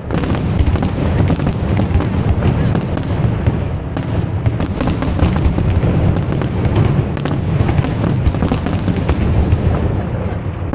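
Aerial fireworks going off in a continuous rapid barrage, with many overlapping deep booms and sharp pops.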